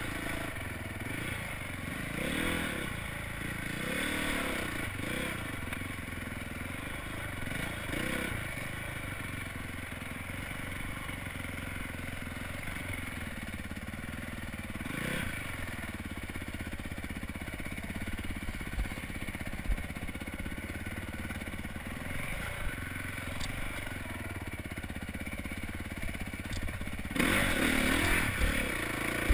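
Honda dirt bike engine, ridden on a rocky single track: the revs rise and fall over the first several seconds, settle to a steady low throttle through the middle, and open up louder about two seconds before the end.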